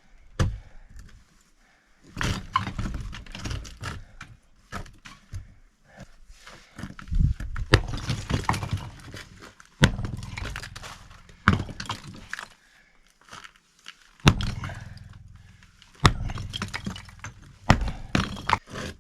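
Sledgehammer blows on a cinder block wall, about seven heavy strikes a couple of seconds apart, each followed by blocks breaking and rubble tumbling down.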